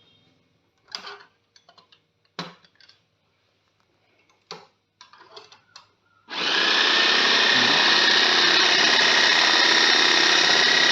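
A few light knocks and clicks, then about six seconds in the Prestige electric chopper's 250-watt motor starts abruptly and runs steadily at high speed with a high whine, spinning the whipping blade in its closed jar.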